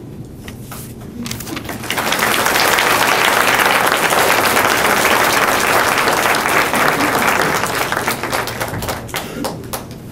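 Audience applauding. It starts as a few scattered claps, swells into full applause about two seconds in, and thins to separate claps near the end.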